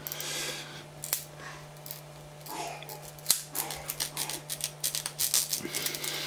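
Hands handling a glass 3D-printer bed with a plastic printed part stuck to it: scattered small clicks, taps and scrapes, more frequent in the second half, over a steady low hum.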